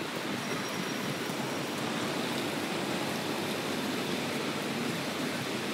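Steady outdoor city background noise: an even hiss with no distinct events.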